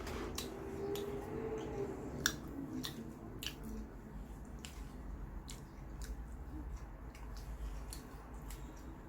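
Irregular sharp clicks and soft squishy sounds of food being handled and eaten at close range.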